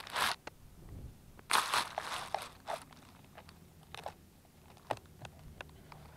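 Irregular crunching and rustling close to the microphone: a few loud bursts in the first three seconds, then scattered faint clicks.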